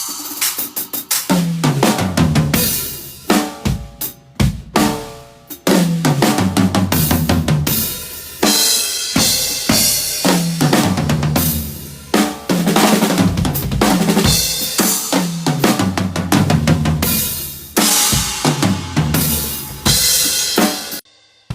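Drum kit played solo in fast fills: snare and rimshots, bass drum, toms that fall in pitch across the kit, and cymbal crashes. It stops abruptly about a second before the end.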